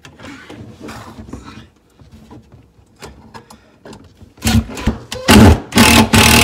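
Faint rustling and handling, then from about four and a half seconds in a cordless drill driving a screw into the wooden shelf in several short, loud trigger bursts.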